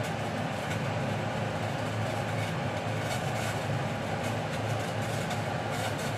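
A steady, even machine hum with a rush of noise over it, unchanging in level, with a few faint light clicks on top.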